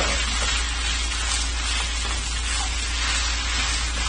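Fried rice with garlic butter sizzling steadily in a wok over high heat, over a low steady hum.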